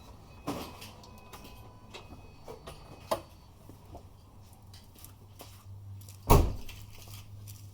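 Subaru Forester engine idling with a low hum and a few light clicks, then one heavy clunk about six seconds in. This is the driveline clunk the car gives on shifting between park and reverse, caused by a worn CV axle.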